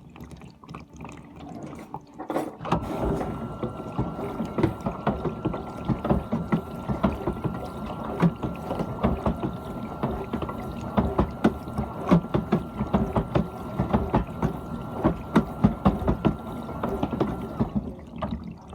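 GE dishwasher running: water spraying and splashing inside the tub with a steady high hum. Both start suddenly about three seconds in and cut off together about a second before the end.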